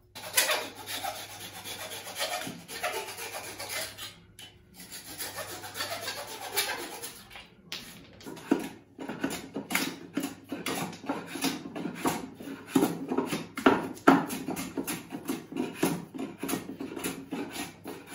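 Hand plane shaving the protruding white oak leg tenons flush with the bench top, in quick repeated strokes across the end grain, with short pauses about four and seven and a half seconds in.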